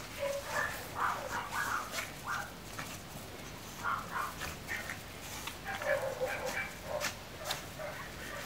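Chihuahua puppies yapping and yipping in short high-pitched bursts as they play-fight, in several clusters with brief pauses between.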